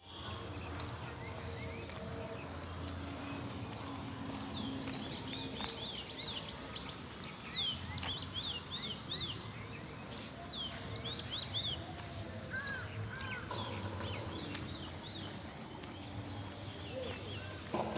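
Small birds chirping together: a dense run of short, quick chirps over a faint low background noise.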